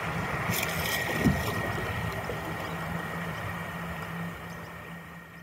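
Electric kayak under way, driven by its brushless motor: a thin steady whine over a hum and a rushing noise of the hull moving through water, with a brief louder moment about a second in, fading out toward the end.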